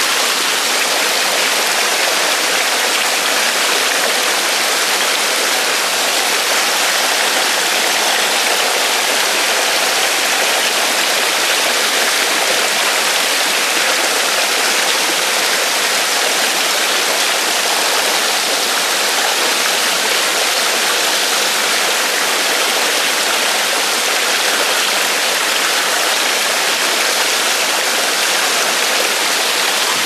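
Mountain stream running over rocks in a small cascade: a steady, even rush of water.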